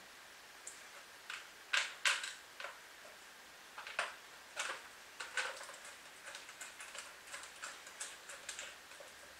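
Irregular light clicks and taps of metal parts being handled and fitted together as the lower half of a small Hangkai outboard motor is put back on, a dozen or so spaced unevenly, the sharpest about two seconds and four seconds in.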